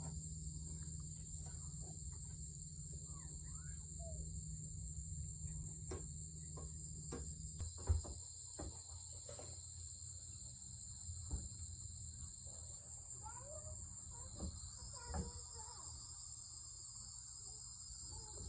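Steady high-pitched chorus of crickets and other night insects, its pattern changing twice as different singers join in, with faint bird chirps and a low hum beneath. A few sharp clicks or knocks stand out, the loudest about eight seconds in.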